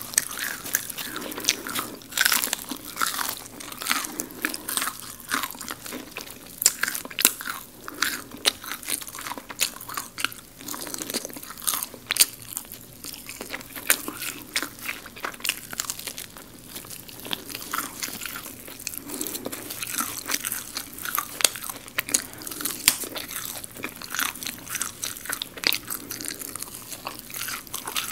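Crispy garlic fried chicken being bitten and chewed close to the microphone: a dense run of sharp crunches from the crisp coating, several a second, with quieter chewing between them.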